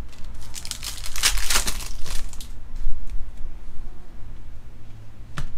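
Panini Prizm trading cards being shuffled and flipped through by hand: a quick run of crisp rustling and crinkling, loudest in the first two seconds and then lighter, with a single sharp click near the end.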